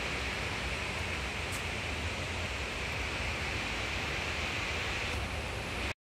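Steady rush of river water pouring over a wide weir, an even hiss of falling water. It breaks off for an instant near the end.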